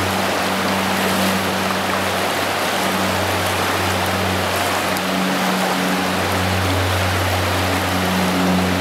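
Rushing river water, a steady hiss, under background music with long held low notes that drop out briefly in the middle.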